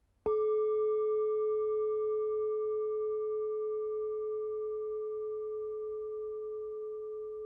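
A singing bowl struck once, ringing with a low tone and several higher overtones that slowly fade away.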